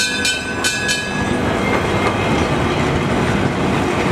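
Blackpool illuminated heritage tram rolling past close by on its rails: a quick run of sharp wheel clacks in the first second, then a steady rolling rumble.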